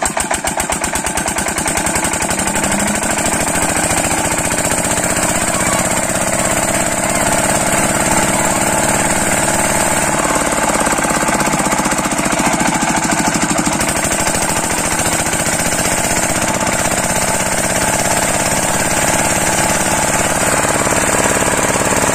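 An 8 hp single-cylinder diesel engine on a water pump set runs steadily with a fast, even knocking beat, freshly started.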